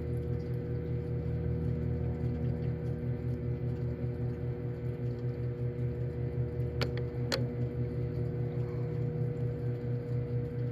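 Microwave oven running with a steady electrical hum. Two sharp clicks come about seven seconds in, half a second apart.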